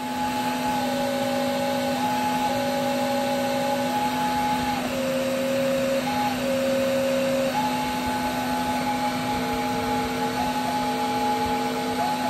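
Homemade cardboard pipe organ played from its keys, its wind supplied by a running vacuum cleaner because the wind chest leaks too badly to sound otherwise. Over the steady vacuum noise and a low hum, paper pipes sound steady whistly notes, usually two at once: a high note held most of the time while lower notes come in and cut off as keys are pressed and released.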